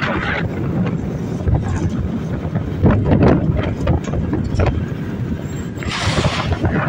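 Traffic and road noise heard from a slowly moving car, with wind buffeting the microphone. A louder rush of noise comes near the end.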